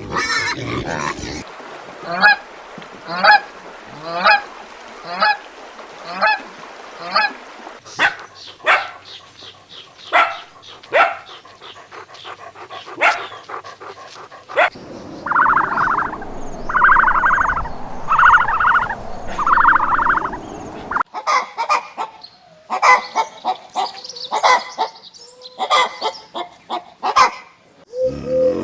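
Domestic waterfowl calling repeatedly. First comes a run of honks about once a second, then sharper short calls, then several longer, harsh buzzy calls, and more calling near the end.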